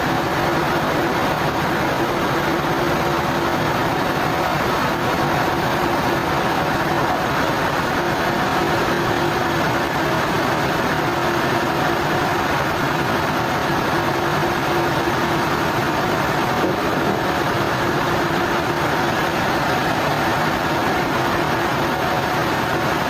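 Sawmill machinery running steadily: a constant mechanical drone with a low hum, holding even throughout without starts or stops.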